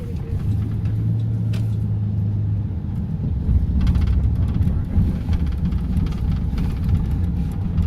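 Steady low rumble, with a faint steady hum from about half a second to two and a half seconds in.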